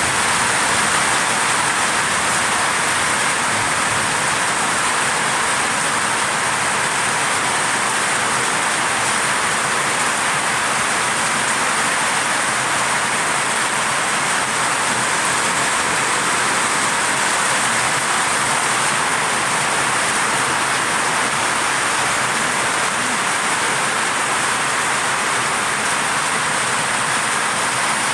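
Heavy hurricane rain pouring steadily, an even, unbroken noise without any distinct drops or gusts.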